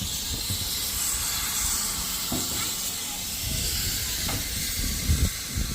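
Steady hiss of escaping steam from a steam locomotive, with an irregular low rumble underneath and a couple of low thumps about five seconds in.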